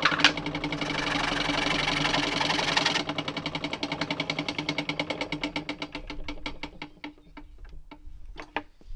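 Barnes No. 2 foot-powered scroll saw running, its reciprocating blade rasping through wood at a fast, even stroke. About three seconds in the rasp drops away abruptly; the saw's strokes carry on, slowing and fading as it coasts down, with a couple of sharp knocks near the end.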